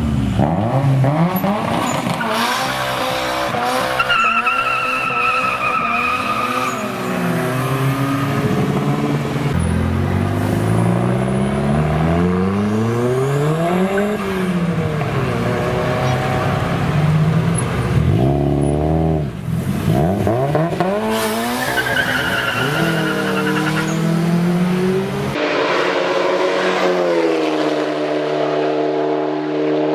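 Toyota Glanza V's 1.3 L 4E-FTE turbocharged four-cylinder revving up and down hard as the car accelerates away, with a high whistle twice over it. About 25 seconds in it gives way to a steadier, slowly rising engine note from a Mitsubishi 4G63T turbo four.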